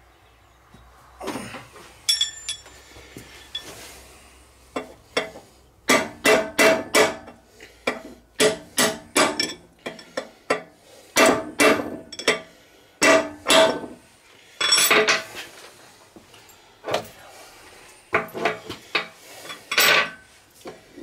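Hammer blows on a brass drift, tapping the bearing race down on a tractor steering column in its cast-iron steering box. The blows come in runs of several quick taps a second, each ringing with a metallic note, with short pauses between runs. A few lighter metal clinks come in the first few seconds.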